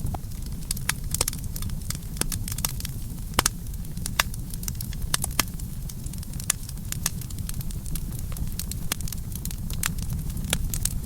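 Campfire burning: a steady low rumble of flames with irregular sharp crackles and pops of burning wood, a few louder pops a few seconds in.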